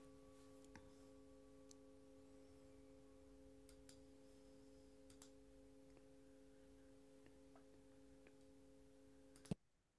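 Faint, steady ringing of a sound-bath instrument left to sound on, several held tones together with a few light ticks. Near the end a sharp click comes, and the sound cuts off suddenly.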